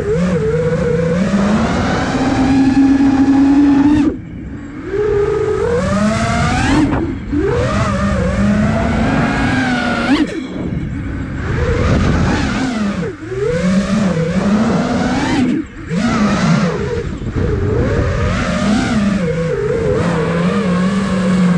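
iFlight Nazgul Evoque F5 HD quadcopter's brushless motors whining as heard from the onboard camera, pitch sweeping up and down with the throttle. The whine drops out sharply four times, around 4, 10, 13 and 16 seconds in, then surges back, with wind rush underneath.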